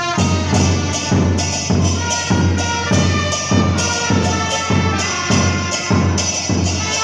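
Two trumpets playing a cumbia melody over a murga bass drum (bombo murguero) beating a steady rhythm, a little under two strokes a second.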